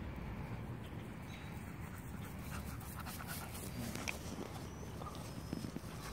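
Dog panting over a low rumble, with a couple of sharp clicks in the second half.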